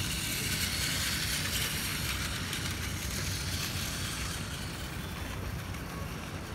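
Steady outdoor city ambience: a low rumble of distant traffic with a higher hiss over it that eases off about four seconds in.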